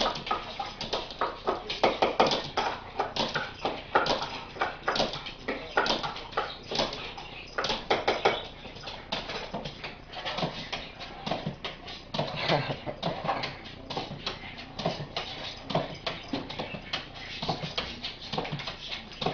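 Italian greyhound's claws clicking on a hard floor, a quick, irregular run of taps, several a second, as the excited dog moves about waiting to be fed.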